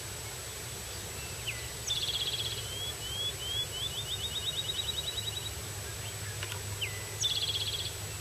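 A small songbird singing twice. Each song opens with a short note, then a fast trill, and the first runs on into a quick series of repeated notes. The second song starts about seven seconds in and is cut short at the end.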